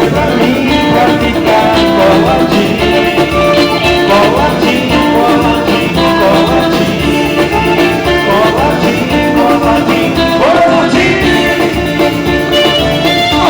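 Live band music with a singer over a steady beat.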